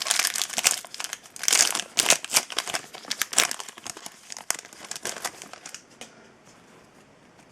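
Crinkling of a foil trading-card pack wrapper being handled, a dense run of crackles that dies away after about six seconds.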